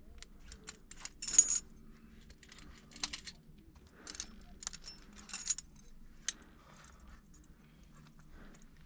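Metal climbing hardware, carabiners and gear on a harness, clinking and jangling in short bursts as the rope is handled, loudest about one and a half seconds in.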